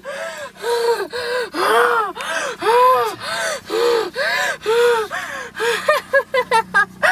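A woman's voice making rhythmic, high-pitched gasping cries, each rising and falling in pitch, about two a second, quickening into short rapid ones near the end: the panting cries of an acted ghost possession.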